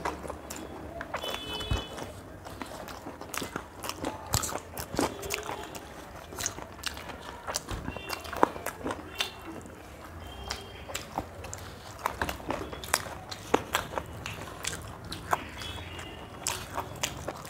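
Close-up eating sounds of two people chewing and gnawing chicken pieces off the bone, with many quick irregular mouth clicks and smacks.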